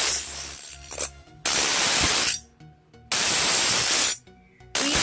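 Knife blade pressed against a small grinding wheel spun by a 12-volt DC motor, making a harsh hissing grind. It comes in strokes about a second long with short pauses between: one stroke tails off at the start, then three more follow.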